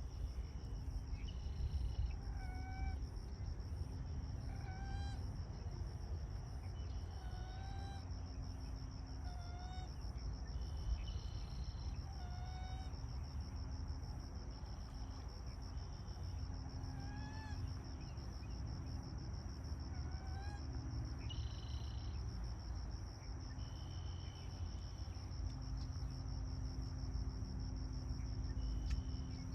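Outdoor insect chorus: a steady high-pitched drone, with short rising call notes repeating every second or two and a low rumble underneath.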